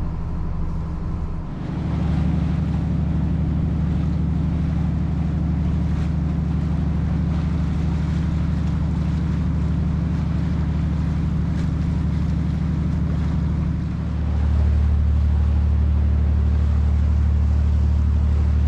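A boat's diesel engine running steadily, heard from aboard as a low hum. It gets louder about a second and a half in, then louder and deeper again near the end.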